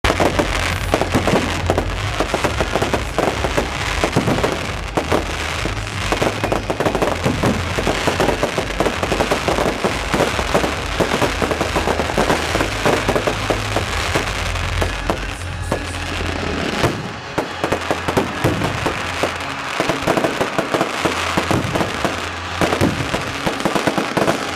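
Fireworks grand finale: many shells going off at once in a dense, unbroken run of bangs, pops and crackles.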